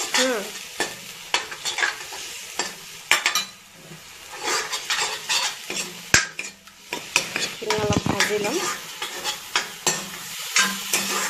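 Steel spoon stirring and scraping curry-leaf paste frying in oil in a black wok: a steady sizzle broken by many quick scrapes and clicks of the spoon against the pan.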